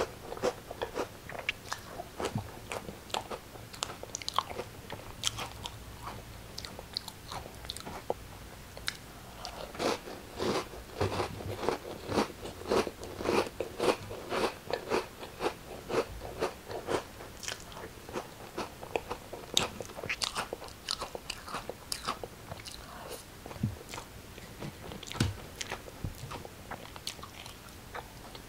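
Crunchy crackers being bitten and chewed: a steady run of sharp crunches, thickest through the middle.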